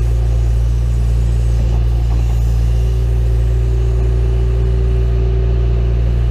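John Deere 310E backhoe's four-cylinder diesel engine running at a steady speed, a loud, even low hum with no revving. A faint steady whine rides over it from about halfway through until near the end.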